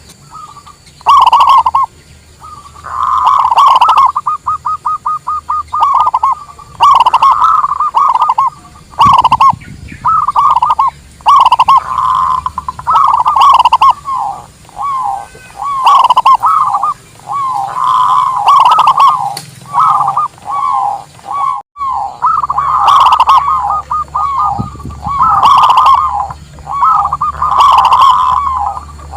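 Zebra doves (perkutut) cooing: a run of repeated bubbling coo phrases, with one fast stuttering series of short notes about four seconds in.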